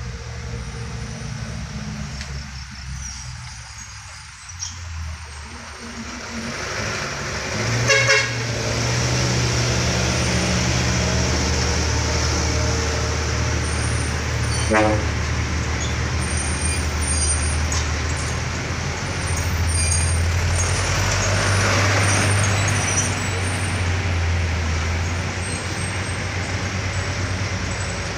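Heavy trucks' diesel engines labouring at low speed as they crawl around a sharp hairpin bend, the drone growing louder about six seconds in. Two short horn toots sound, one about eight seconds in and one about fifteen seconds in.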